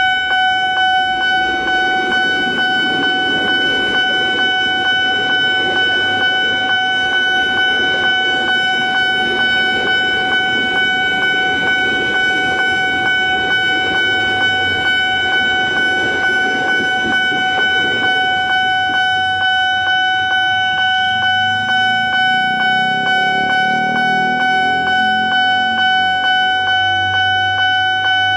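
Railway level-crossing warning bell ringing continuously in rapid, evenly repeated strokes. Under it, a KRL electric commuter train rumbles through the crossing for roughly the first two-thirds. A lower, shifting hum comes in near the end.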